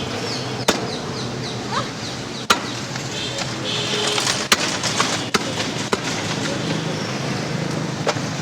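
Butcher's cleaver chopping beef: about six sharp, separate chops at uneven intervals over a busy market background.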